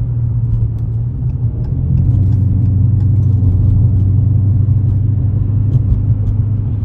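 Dodge Challenger R/T's V8 engine and exhaust running with a steady low rumble while driving, getting louder about two seconds in.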